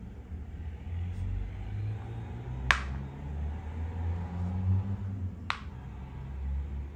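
Makruk (Thai chess) pieces set down on the board with two sharp clacks, one about two and a half seconds in and another near five and a half seconds, one for a white move and one for a red move. A low steady rumble runs underneath.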